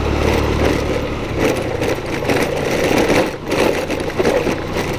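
Motorcycle engine running while riding along a dusty, rough dirt road, with a steady low hum that drops away after about a second.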